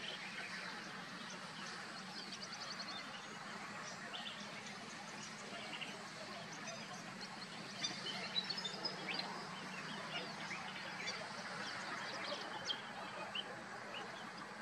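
Wetland ambience: various birds chirping and calling, with short high calls and a few quick trills scattered throughout, over a steady background hiss and a low hum.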